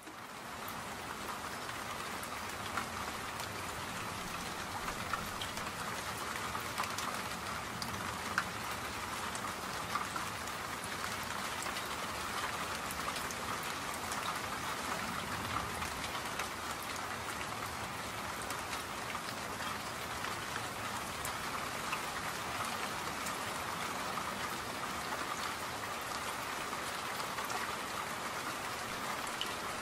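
Steady rain falling: an even hiss with scattered ticks of single drops.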